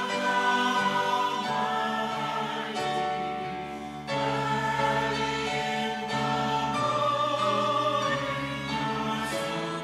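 Small mixed choir of men and women singing in sustained chords, phrase by phrase, with a brief break and a new phrase starting about four seconds in.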